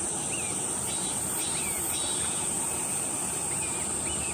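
Steady high-pitched insect drone with a bird repeating short rising-and-falling chirps, pausing for about a second midway.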